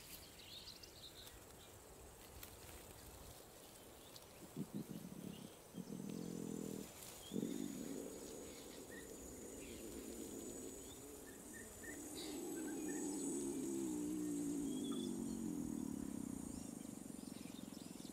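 A young lion moaning in distress during a painful seizure: a few short, low calls from about four seconds in, then a longer, wavering call. Faint bird chirps sound in the background.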